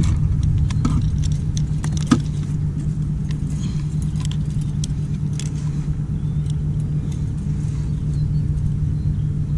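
Scattered metallic clicks and light jingling from a metal fish lip grip and hooks being handled, densest in the first couple of seconds, over a steady low hum that is the loudest sound.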